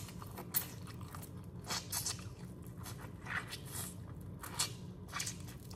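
Close-miked eating of boiled crawfish: short, sharp cracks and crunches of shell scattered every second or so, with chewing in between.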